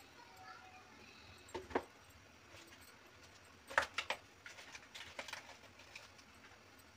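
Faint scattered ticks and small pops of cooking oil heating in an aluminium pressure cooker, with a couple of sharper clicks about a second and a half in and near four seconds in.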